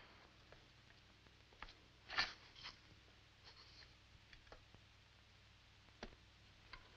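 Near silence: quiet room tone with a few faint short clicks and knocks, the loudest a little over two seconds in.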